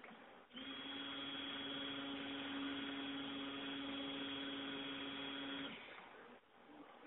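Electric stick blender running steadily with a motor whine as it mixes cold process soap batter. It starts about half a second in and is switched off after about five seconds.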